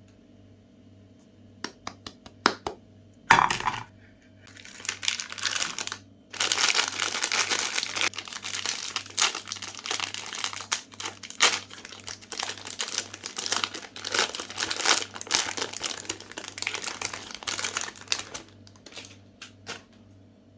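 Plastic wrapper of a Magnum ice cream bar being torn open and crinkled: a few sharp crackles, a loud rip about three seconds in, then a long stretch of continuous crinkling that thins out to scattered crackles near the end.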